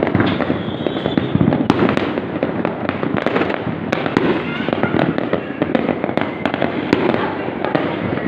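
Fireworks going off in rapid succession: a dense, continuous crackling with many sharp bangs.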